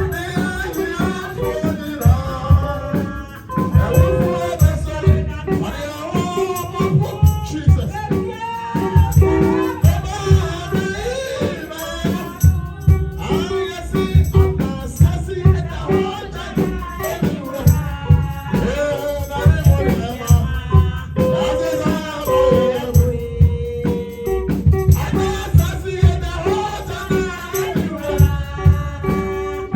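Worship music: voices singing a praise song over a steady drumbeat, with a shaker rattling along.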